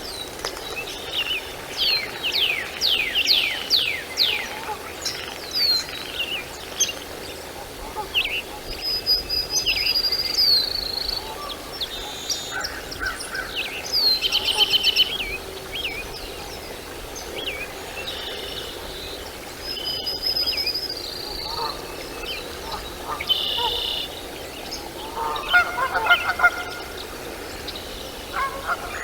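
Birds calling: a series of high chirps and quick falling whistles, a fast rattling trill about halfway through, and a lower, honk-like call with several stacked pitches near the end.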